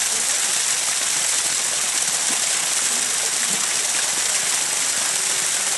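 Steady rushing hiss of shallow water running over stones in a small channel.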